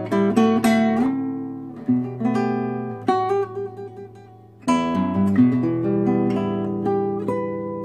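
Nylon-string classical guitar played fingerstyle: a melody picked over held bass notes. The notes die away to a quieter spot just past halfway, then a loud chord is struck and the melody goes on.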